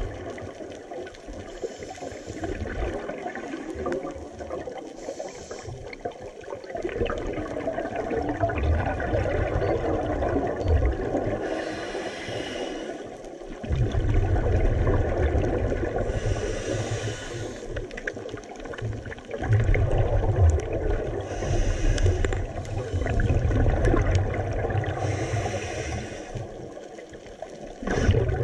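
Scuba divers' regulator breathing heard underwater: a steady low rumble and gurgle of water and bubbles, with a rushing surge of exhaled bubbles every few seconds.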